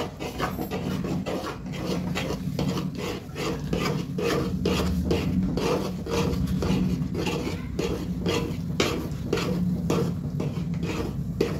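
Steel spatula scraping and stirring a thick, stiffening rice batter in an aluminium pan, in even strokes about two a second, over a steady low hum.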